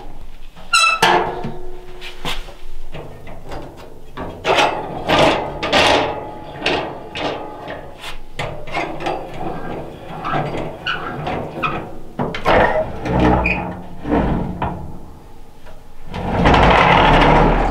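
A wood cookstove being worked by hand: metal doors and the ash drawer clank and knock, with wood knocking against metal. There is a short squeak about a second in, and a longer rasping scrape near the end.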